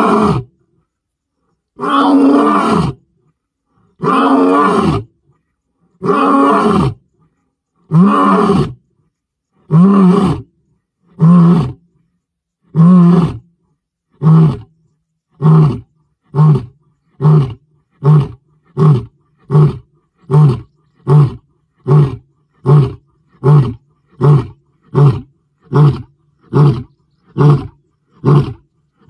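Lion roaring bout: a few long, full-throated roars of about a second each, then a run of shorter grunting roars that come faster and faster, about one every 0.7 s near the end.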